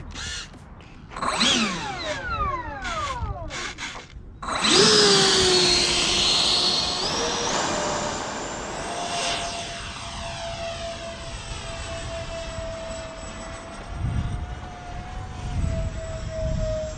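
Twin 70 mm electric ducted fans of an RC F-22 model jet: a few short throttle blips with sweeping pitch, then about four and a half seconds in a loud, steady high whine that steps up in pitch and holds. Low rumbling thumps come in near the end.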